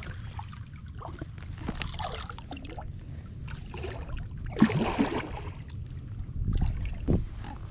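Hooked catfish thrashing and splashing in shallow water at the foot of a rocky bank as it is hand-lined in, in irregular bursts with the biggest splash about halfway through and another near the end.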